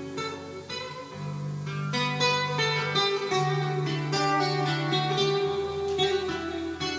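Instrumental guitar music played back on a Panasonic cassette deck: a run of plucked notes over long held bass notes.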